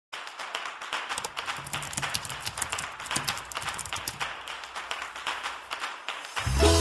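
Computer keyboard typing: quick, irregular keystroke clicks, several a second. Music comes in near the end.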